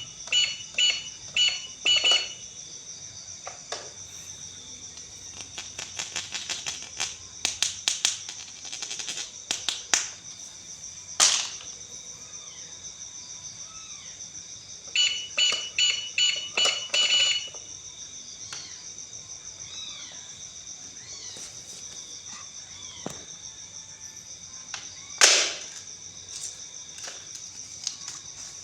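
Electronic toy beeping in quick runs of short tones, with bursts of rapid plastic clicks and a few sharp knocks, over a steady high-pitched tone.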